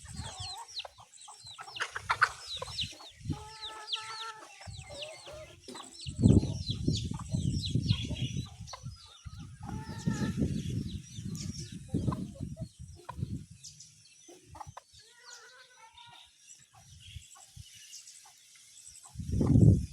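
Free-range chickens clucking and calling, with a steady stream of quick high chirps. Loud low rumbling bursts come and go a few times.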